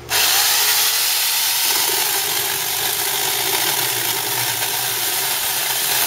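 Harbor Freight Portland 14-inch corded electric chainsaw running at full speed and cutting steadily through a branch of dead peach wood, a loud, even motor-and-chain noise that comes in abruptly at the start.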